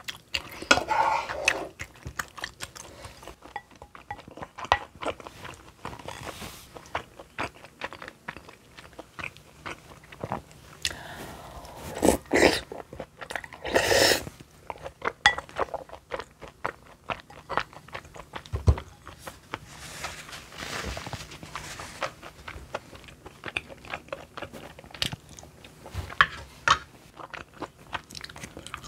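Close-miked eating sounds: a person chewing and swallowing spoonfuls of creamy rosé tteokbokki sauce, with many small clicks of a spoon against a glass bowl. There are a few louder, noisier bursts about halfway through.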